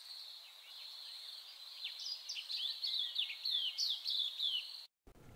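Outdoor nature ambience: birds chirping in short, quick downward-sweeping calls, several a second from about two seconds in, over a steady high insect buzz. It all stops abruptly near the end.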